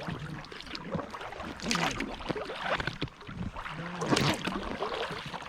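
Kayak paddle strokes in the water, two splashing swishes about two seconds apart, over a steady wash of water against the hull.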